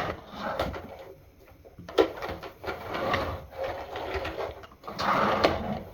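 Clicks, knocks and rustling of hard plastic being handled: the assembled vacuum cleaner and its parts being moved about, with the motor not running.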